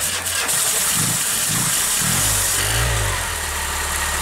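Car engine running with its oil drained and its valve cover off, the valvetrain exposed. The revs rise and fall a few times in the first three seconds, then it settles to a steady idle.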